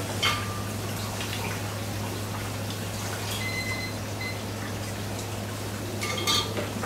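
Thick eel sauce dripping and pouring from a small metal dipper onto a bowl of rice, with a light ringing clink about a quarter second in and another near the end, over a steady low kitchen hum.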